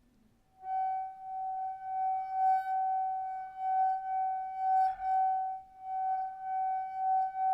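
A single sustained ringing tone at one steady pitch starts about half a second in and holds, swelling and fading slightly in loudness, with a faint click about five seconds in.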